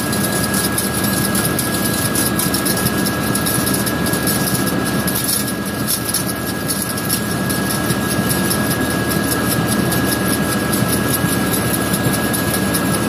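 Tractor engine running steadily, driving a round baler through the PTO with a full bale turning in the chamber while twine is wrapped on; a steady high whine runs over the machine noise.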